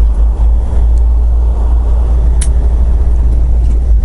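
Semi truck's engine and road noise inside the cab while driving: a steady, loud low drone, with one brief sharp click about two and a half seconds in.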